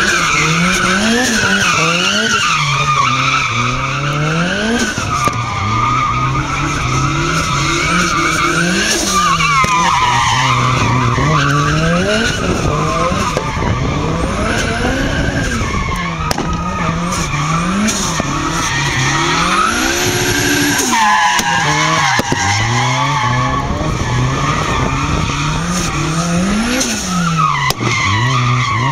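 Nissan Silvia S15's SR20 four-cylinder engine revving hard while drifting, its revs rising and falling every second or two. The rear tyres squeal on the tarmac almost without a break, the squeal wavering in pitch as the car slides.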